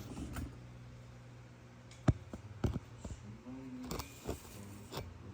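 Scattered sharp clicks and knocks of hand tools and metal parts being handled inside a car during seat removal, the loudest about two seconds in, over a faint steady low hum.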